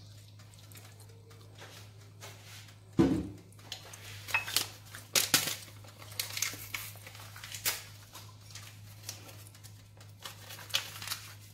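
Scattered clinks and knocks of kitchen dishes and utensils, with a louder thump about three seconds in, over a steady low hum.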